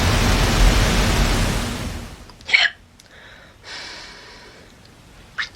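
A person hiccuping twice, two short sharp hiccups about three seconds apart. Before the first one a loud steady hiss fades out about two seconds in.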